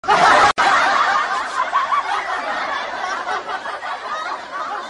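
Canned laughter: a crowd of many people laughing together. It starts abruptly, has a short break about half a second in, and slowly grows quieter.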